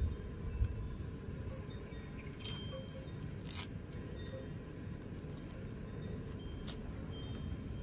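Dry coconut shoot sheaths and husk fibres being picked and trimmed by hand with a small tool: a few scattered crisp clicks and crackles over a steady low rumble.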